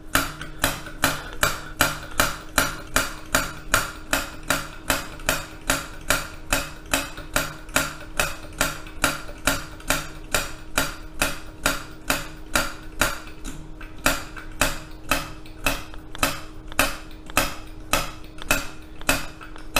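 Hand pump of a vintage brass gasoline blowtorch being worked steadily to pressurize the fuel tank, the plunger clacking at every stroke, about two to three times a second. The pump's plunger has a new leather.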